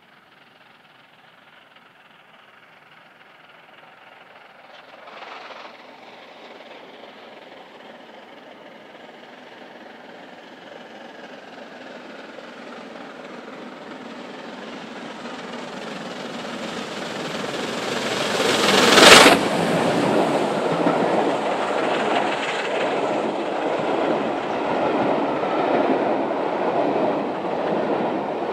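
LNER A4 Pacific steam locomotive, 60019 Bittern running as 4492, approaching and passing close by. Its sound builds steadily, is loudest about two-thirds of the way through as it comes level, then gives way to the steady rumble of its coaches rolling past.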